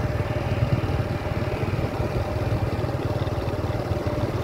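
Motorbike engine running steadily while riding along a road, a constant low rumble with a faint steady hum over it.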